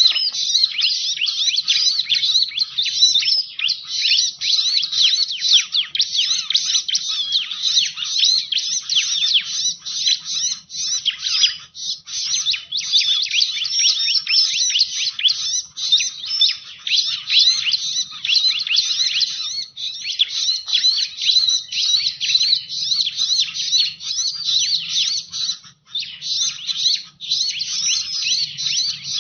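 Bar-winged prinia (ciblek) calling in a dense, rapid stream of high chirps and trills with hardly a pause, played as a lure call for catching the bird.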